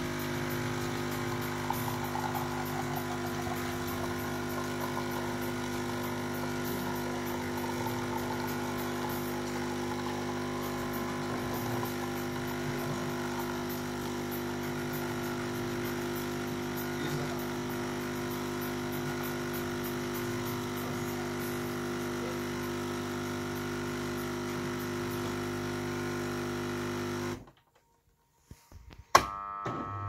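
Jura Impressa C60 bean-to-cup coffee machine humming steadily as its pump forces coffee out through both spouts during brewing. The hum cuts off suddenly near the end as the brew finishes, followed a moment later by a single sharp click.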